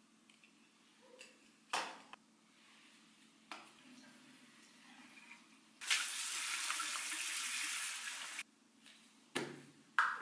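Bathroom sink tap turned on and running for about two and a half seconds, starting near the middle and cut off abruptly. A few short knocks of small objects set down on the marble counter come before and after.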